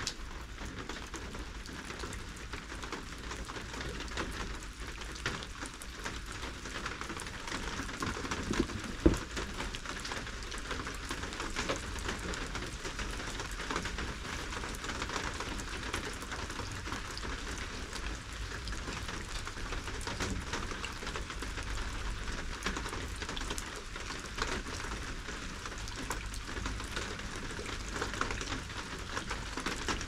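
Steady rain falling, with many small drops pattering close by. One louder tap stands out about nine seconds in.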